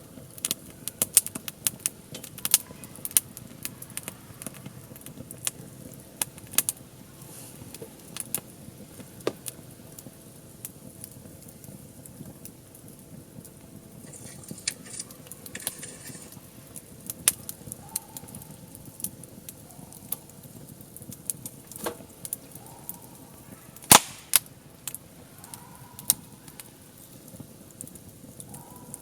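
Wood fire crackling: irregular sharp pops and snaps over a low steady hiss, with one louder pop near the end.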